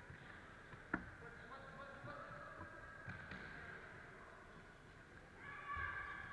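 Young children's high-pitched voices calling out in a large sports hall, with one sharp thud of a football being kicked about a second in.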